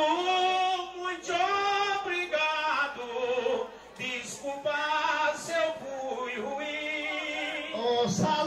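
Voices singing a melody in short phrases, with a brief drop in loudness about four seconds in.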